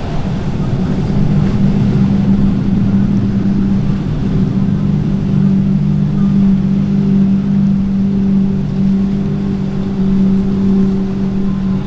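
Bank of outboard engines on a Midnight Express center-console powerboat running at speed, a steady drone in a few close pitches, mixed with the rush of its hull and spray.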